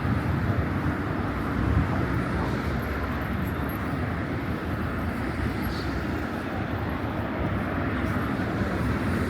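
Steady city street noise, mostly the low, continuous sound of traffic.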